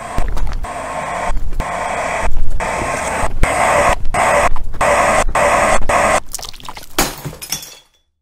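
A loud, noisy crashing and crackling sound effect. It builds over the first few seconds, is broken by short gaps about every half second, and cuts off abruptly near the end.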